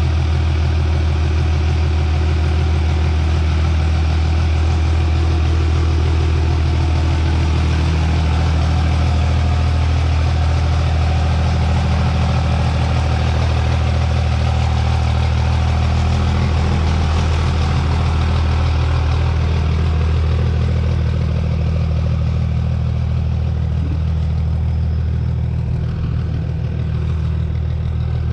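Cummins turbo-diesel engine of a 2000 hp drag truck idling steadily, sounding healthy.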